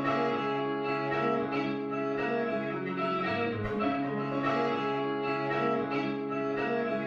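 Instrumental music with sustained chords and struck, mallet-like notes, played through the KSNXRL Reverb plugin as a demonstration of its reverb.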